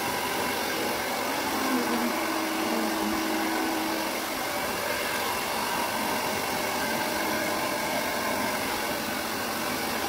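Handheld hair dryer running steadily, blowing on a wet cat's fur.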